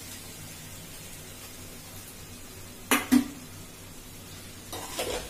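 Two sharp clinks of steel kitchenware about three seconds in, then the slotted steel spatula clattering and scraping in a nonstick pan as crushed roasted peanuts are stirred into potato and spinach, over a faint low hum.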